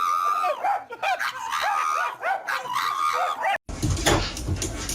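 A dog giving a run of short, high-pitched whining cries that rise and fall. About three and a half seconds in it cuts off abruptly, and a low rumbling background follows.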